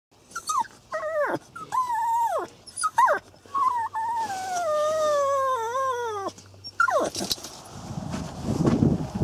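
A dog whining: several short, high-pitched whines that fall in pitch, then one long whine of nearly three seconds that slides slowly downward, and one more short whine about seven seconds in. A low, rough rustling noise builds near the end.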